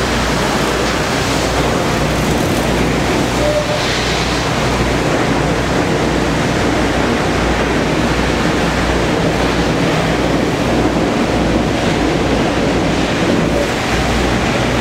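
Bus wash spray pouring over a transit bus, heard from inside the cabin: a loud, steady rushing of water against the windows and body, with a low steady rumble underneath.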